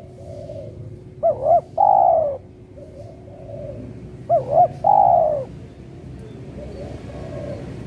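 Spotted doves cooing. Twice there is a loud phrase of two short notes followed by a longer falling coo, and softer coos from another dove run in between and after.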